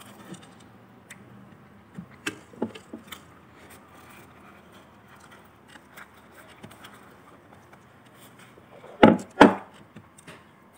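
Table-side eating sounds: fried chicken strips and small plastic dipping-sauce cups being handled, with scattered light clicks and knocks. Two sharp knocks, the loudest sounds, come close together about a second before the end.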